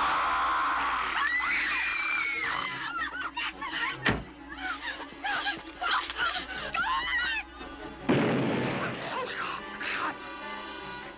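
Horror film soundtrack: a music score under many short, high-pitched shrieks and screams, with a sharp bang about four seconds in and a burst of noise about eight seconds in.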